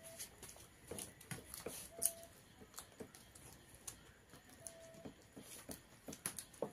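Close-up eating sounds: chewing, lip smacks and fingers working rice on plates, a string of faint irregular clicks with a sharper one about two seconds in. A brief steady tone sounds twice.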